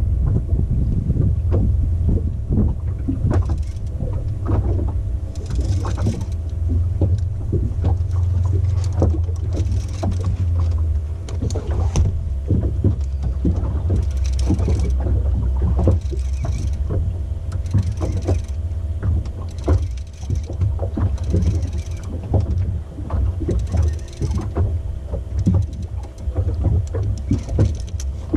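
Boat's outboard motor running steadily at trolling speed, with scattered knocks and rattles on the boat.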